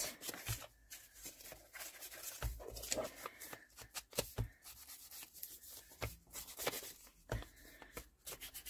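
Ink being dabbed and rubbed around the edges of folded book-page paper: scattered soft taps of the ink applicator on the paper over a faint rubbing, with some paper handling.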